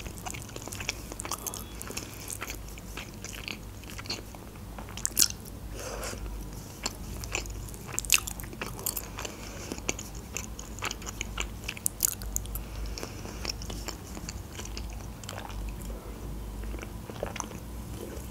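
Close-miked chewing of lasagna: continuous mouth and biting sounds made up of many small wet clicks, with a few sharper ticks scattered through.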